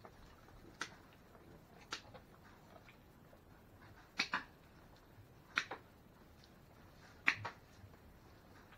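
Sharp, faint snips of hoof-trimming shears cutting a goat's hoof: two single clicks, then three quick pairs a second or so apart.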